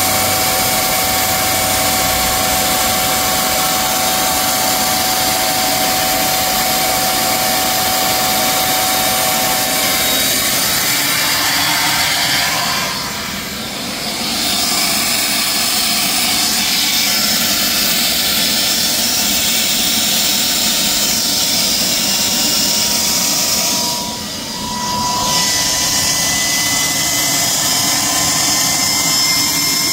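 Capstone microturbine running: a steady high-pitched turbine whine over rushing air, with several steady tones, a couple of which drift slowly upward in the second half. The loudness dips briefly twice.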